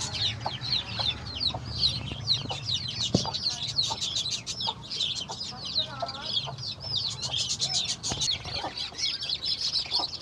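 A brood of country-chicken chicks peeping without pause in rapid, high, down-curving cheeps, with a lower cluck from the mother hen now and then.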